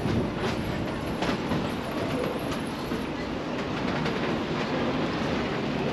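Steady rumbling road noise from a bicycle ride, broken by irregular sharp clicks and rattles.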